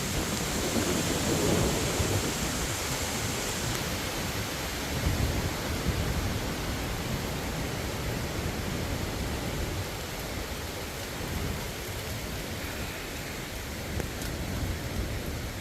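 Hurricane Helene's strong wind gusting with rain falling, the gusts buffeting the microphone in low rumbles. It is loudest in the first half and eases a little after about ten seconds.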